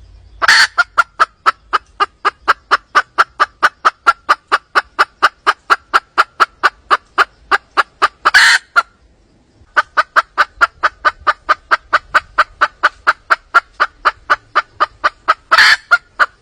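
Wild hen calling in a fast, evenly paced string of clucks, about five a second, in two long runs with a short break between them. A louder, harsher note opens the first run and another comes near the end of each run.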